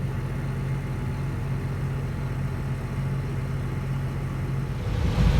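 Farm vehicle engine running steadily with a low, even hum. A louder, rougher rumble comes in near the end.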